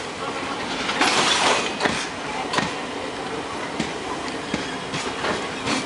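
Express passenger train coaches rolling past at speed, their wheels clacking over the rail joints roughly every half second over a steady rumble, with a louder rush of noise about a second in.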